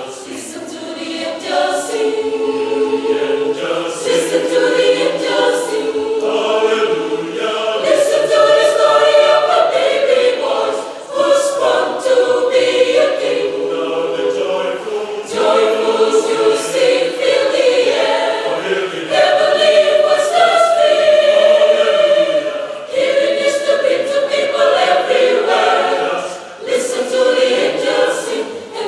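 Mixed choir of women's and men's voices singing in harmony under a conductor, held chords with short breaks between phrases.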